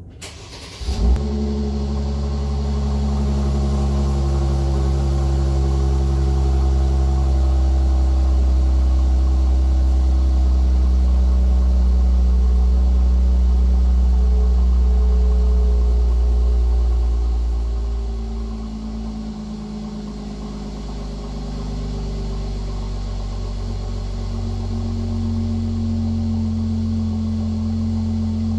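Mercedes-Benz C450 AMG's twin-turbo V6 cold-starting. It cranks briefly and catches with a loud burst about a second in, then runs at a high, steady fast idle through the exhaust. About seventeen seconds in the idle drops and quietens, settling to a lower steady idle.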